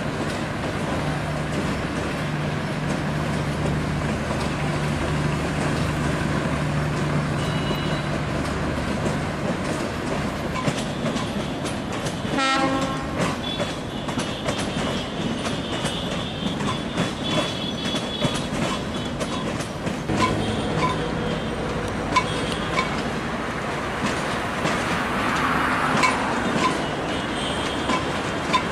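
Passenger trains running on the rails: a steady low drone of a locomotive for the first several seconds, then coach wheels clicking over rail joints and points, with a high thin wheel squeal for several seconds in the middle.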